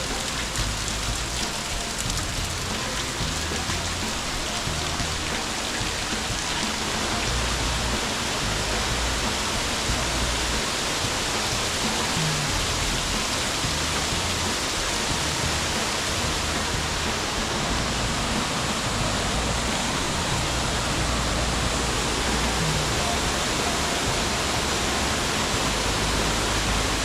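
Steady rushing of a waterfall: a constant, even wash of falling water with no change through the stretch.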